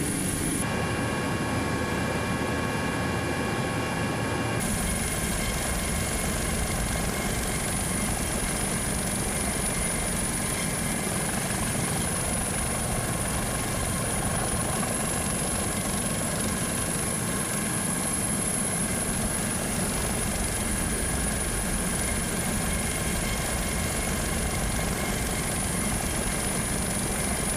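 Steady helicopter turbine and rotor noise, an even, unbroken rush with faint steady whines on top.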